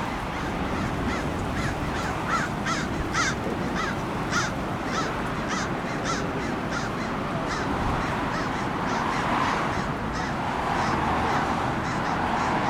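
A crow cawing over and over, about two caws a second, stopping about eight seconds in, over a steady rush of wind and surf that grows louder near the end.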